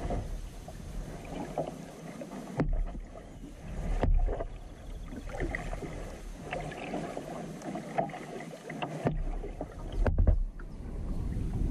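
Kayak paddling in calm water: paddle blades dipping and splashing, water dripping and sloshing, with a few sharper clicks along the way. A low rumble comes and goes underneath.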